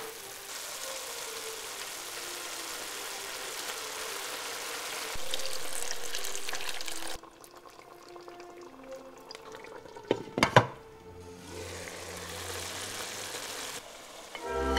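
Tomato broth simmering in a pan, a steady sizzling hiss, broken by a few sharp knocks about ten seconds in.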